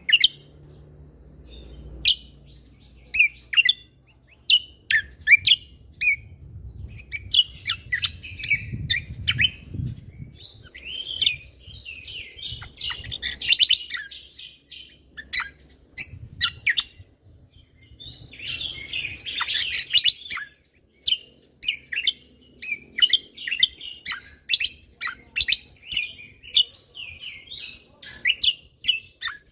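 Cucak kombo (greater green leafbird) in full song: a quick run of sharp, ringing chirps and whistled notes, broken twice by bursts of dense chattering warble. This is the loud 'tembakan' style of singing prized in trained songbirds.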